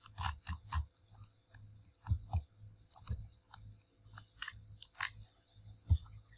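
Irregular clicks of a computer mouse being worked on a desk: a quick run of three near the start, a pair about two seconds in, and scattered single clicks after, over a faint steady hum.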